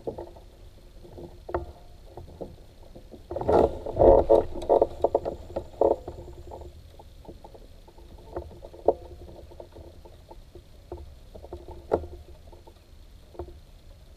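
Fishing kayak under way: its hull and gear knock and rattle, with a burst of louder knocks between about three and a half and six seconds in, and single sharper knocks near the middle and about twelve seconds in.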